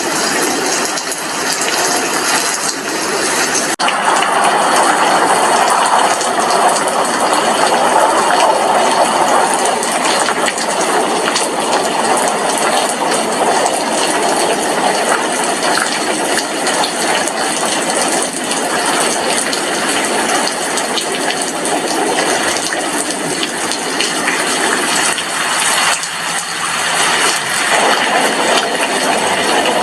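Steady rain falling on a glass window, a dense even hiss of many drops, with a slight abrupt shift in its tone about four seconds in.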